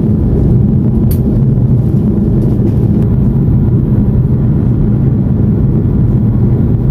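Steady, low cabin noise of a jet airliner in cruise flight: engine and airflow noise heard from inside the cabin.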